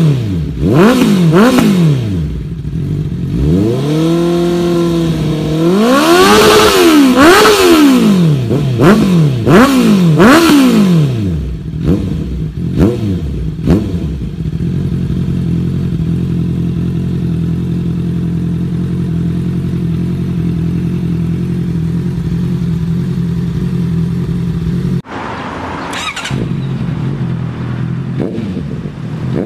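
Honda CB650R/CBR650R 649 cc inline-four engine through its exhaust, revved again and again, the pitch rising and falling in long sweeps, then a few quick sharp blips before it settles to a steady idle. About 25 seconds in the sound cuts abruptly to another recording of the bike, which revs once briefly and idles.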